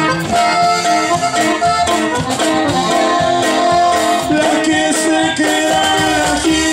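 Live norteño band playing, with an accordion carrying the melody over guitar, bass and drums.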